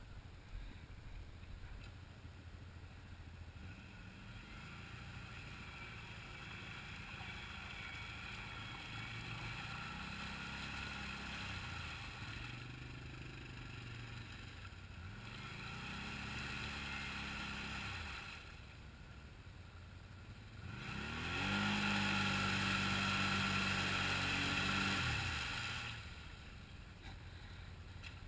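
Quad ATV engines revving in repeated rising and falling swells as they churn through a deep flooded mud hole, over a steady lower engine drone; the loudest is a held high rev lasting about four seconds past the middle, after which it drops back.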